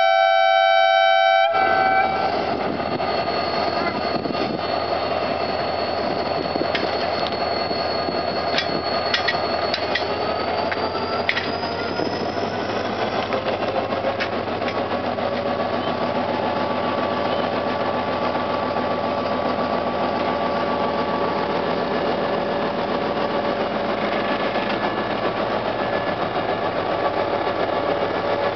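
A diesel locomotive's horn blast cuts off about a second and a half in. Then the locomotive's diesel engine runs steadily as it rolls slowly past at close range, with a few sharp metallic clicks and a thin high squeal that rises and fades around the middle.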